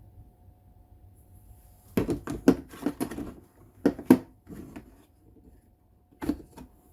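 Handling noise as impact sockets are picked up and set down: a quick cluster of clicks and knocks about two seconds in, a few more knocks around four seconds, and two more near the end.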